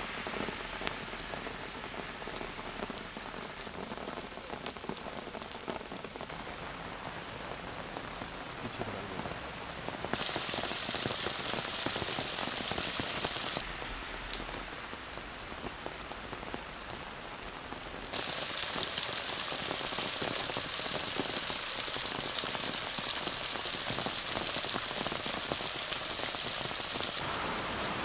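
Heavy rain falling in a steady hiss. It grows louder twice: about ten seconds in for a few seconds, and again from about eighteen seconds on.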